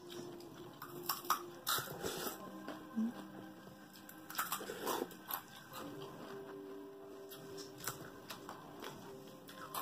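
Noodles being slurped and chewed, with a few short wet slurps, the strongest in the first half, over soft background music.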